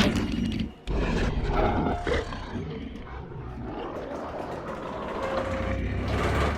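Giganotosaurus creature vocal sound effect, built by sound designers from animal recordings: a call ends just under a second in, then after a short gap comes a long, deep growling roar that stops suddenly.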